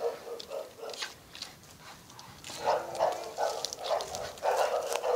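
American Staffordshire terrier growling in short, rough bursts as it hangs by its jaws from a bicycle tire on a rope. The growls get louder about halfway through.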